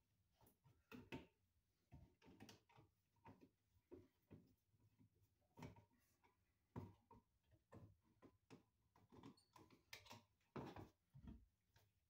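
Faint, irregular clicks and scrapes of a wall light switch and its short wires being handled inside a metal electrical box.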